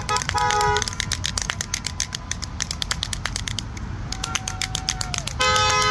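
Car horns honking in the first second and again from near the end, over a fast, steady clicking rattle, with a single held tone in between.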